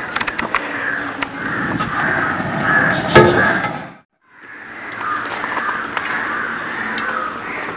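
Aluminium kadai handled and set down on a gas stove, with a few sharp metallic clinks and one louder knock about three seconds in, over a steady hiss. The sound cuts out briefly about four seconds in, then the steady hiss resumes.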